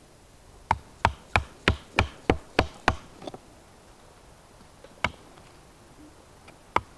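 Fixed-blade bushcraft knife being batoned into a branch with a short wooden stick: eight quick, sharp wooden knocks about three a second, then two single knocks a couple of seconds apart.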